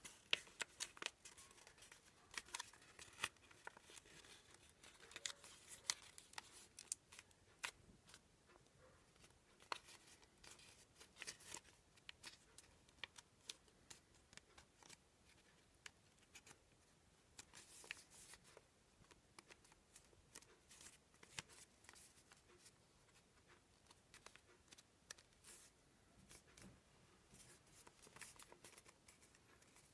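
Paper rustling and crackling as a sheet of white paper is folded into an origami crane, with sharp little crinkles as the folds are pressed and flattened between the fingers, coming in irregular clusters.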